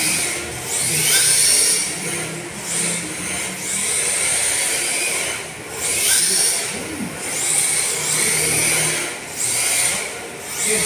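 Electric motors of two RC drift cars whining in repeated bursts, the pitch rising with each blip of throttle every second or two.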